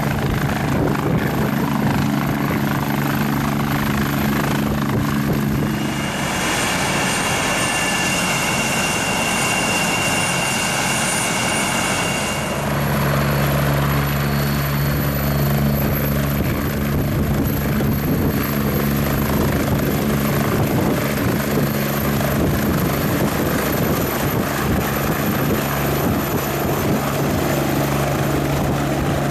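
Fire-brigade helicopter running steadily, its low rotor drone over engine noise. About six seconds in, the low drone drops away and a high whine takes over for some six seconds before the low drone returns.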